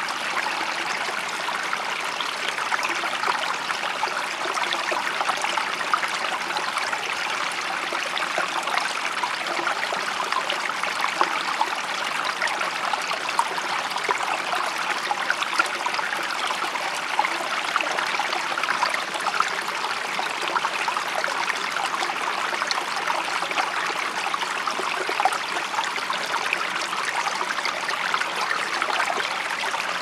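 Flowing water running steadily, an even rush with fine splashing and trickling.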